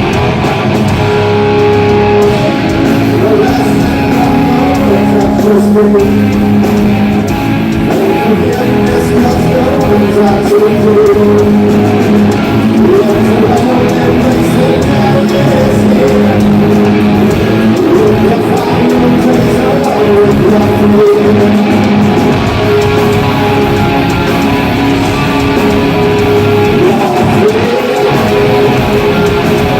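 Hard rock band playing loudly and without a break: electric guitar riffs over a drum kit.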